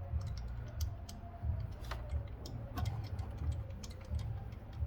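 Ratchet clicking in short, irregular runs as a socket on an extension turns a new spark plug down into the cylinder head.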